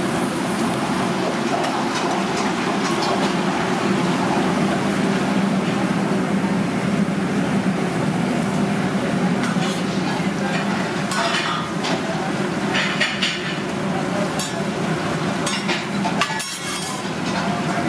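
Restaurant kitchen at work: a steady noisy hum runs under metal utensils clinking and scraping against the cooking surfaces, with a cluster of sharp clinks about two-thirds of the way through and more near the end.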